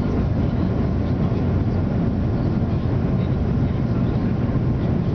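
Steady rumble of a jet airliner's engines and airflow heard inside the passenger cabin during the approach to landing, mostly deep and even.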